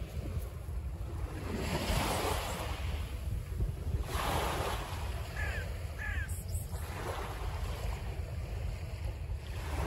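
Sea waves washing on the shore with wind buffeting the microphone; the surf swells about two seconds in and again about four seconds in.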